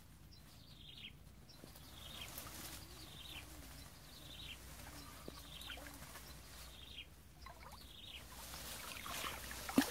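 A bird calling faintly, a short falling note repeated about every two-thirds of a second.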